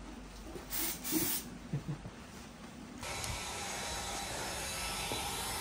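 Two short hisses from an aerosol can of spray-on snow about a second in. From about three seconds in, a hair dryer runs steadily with a faint motor whine.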